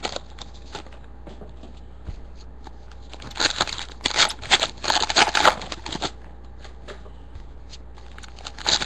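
Trading-card pack wrappers being torn open and handled, with crinkling and rustling in a cluster through the middle and a short burst near the end.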